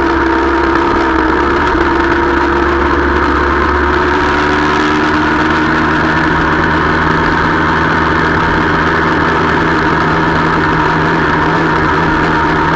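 Motorcycle engine running steadily while riding, heard from the rider's own bike over constant wind and road rush; the engine note shifts about a second in and changes again around five seconds in.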